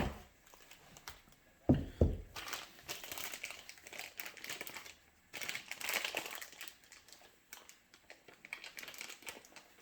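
Packaging being crinkled and handled while unwrapping radio parts, with two knocks about two seconds in and then two spells of crackling.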